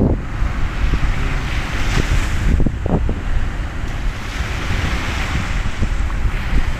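Wind buffeting the microphone in a heavy low rumble, over the steady hiss of small waves breaking on a sandy shore.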